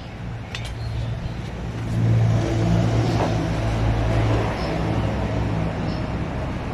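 A motor vehicle engine running with a steady low hum, growing louder about two seconds in and then holding steady.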